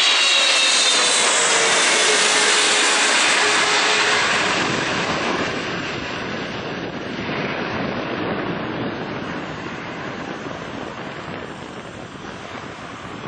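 EVA Air Boeing 777-300ER's GE90-115B turbofans passing low overhead on final approach: loud jet noise with a fan whine that falls in pitch as it goes by. After about four seconds it fades steadily as the jet moves away toward the runway.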